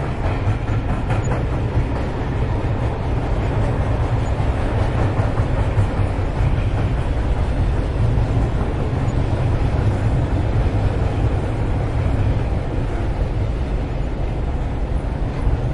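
Freight train passing: a steady, loud, low rumble of rolling railcars on the track.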